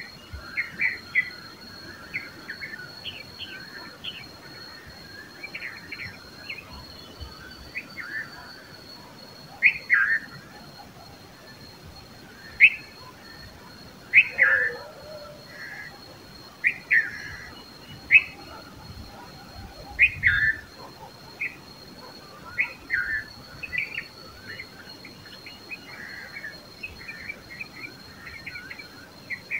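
Red-vented bulbuls calling: short, sharp chirps and quick down-slurred notes, repeated irregularly every second or two.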